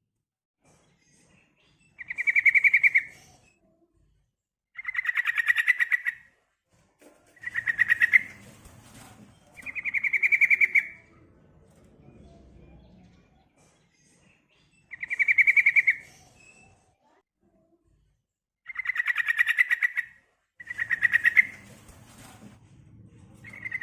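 Female sooty-headed bulbul (trucukan) calling, the call used as a lure to draw males: about eight short trilled calls, each about a second long, repeated every few seconds.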